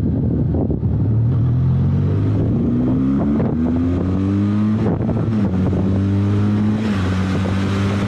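Benelli TRK 502 X's parallel-twin engine accelerating through the gears. Its pitch climbs, drops back at each upshift, and climbs again, then holds steady near the end.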